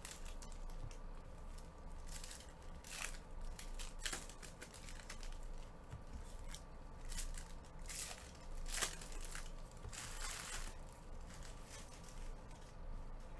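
Trading cards and foil pack wrappers handled with gloved hands: a string of short crinkles, rustles and scrapes as packs are opened and cards are slid and stacked, the loudest near the middle.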